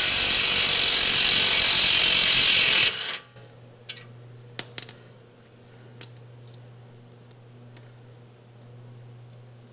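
A loud, steady hiss that cuts off about three seconds in, followed by a few light, ringing metallic clinks over a low steady hum.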